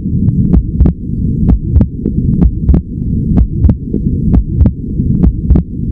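Human heart sounds on auscultation, beating steadily with short sharp clicks over a continuous low rumble. The second heart sound is split into two close components, aortic (A2) then pulmonary (P2) valve closure, as in the normal physiological splitting heard during inspiration.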